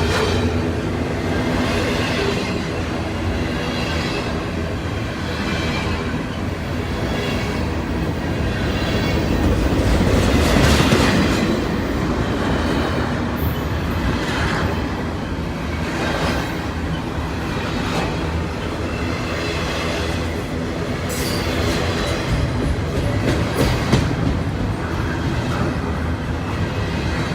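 Freight train rolling past, its steel wheels clattering over the rails in a steady rumble, with a few brief high wheel squeals.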